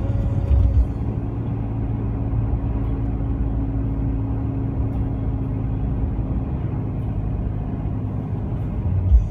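Car interior road noise while driving: a steady low rumble of tyres and engine with a constant hum. There are a few heavier low bumps in the first second and again near the end.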